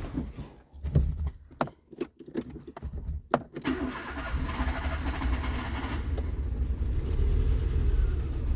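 Renault Clio engine being started: a few clicks and a short crank, then it catches about three and a half seconds in and runs steadily. It starts now that a corroded, snapped battery power cable has been repaired, which cured the no-start.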